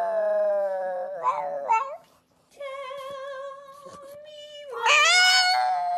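Pug howling in long, wavering, high-pitched calls. A drawn-out howl dies away in the first two seconds, another wavers after a short break, and a louder howl rises near the end.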